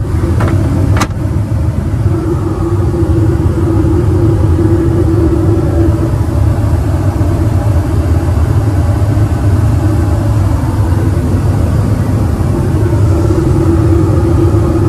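Steady cabin noise of an Airbus A321neo in flight: a loud, even low rumble of airflow and engines with a constant hum over it. There is a sharp click about a second in.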